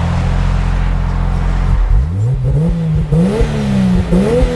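Turbocharged 2JZ inline-six in a Ford Lightning pickup, heard from inside the cab. It hums steadily at first, then about two seconds in the revs climb hard in several quick rises with short dips between them, and fall away near the end.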